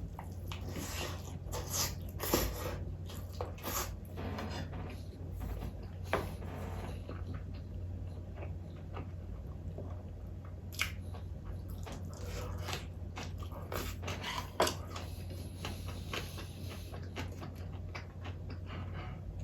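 Close-miked eating sounds of a person chewing a meal, with irregular wet smacks and clicks coming in clusters, over a steady low hum.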